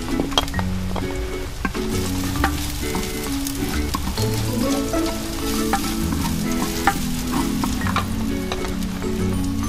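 Garlic and onions sizzling in hot oil in a clay pot as a wooden spoon stirs and scrapes them, with scattered sharp ticks of the spoon against the pot. Soft background music plays underneath.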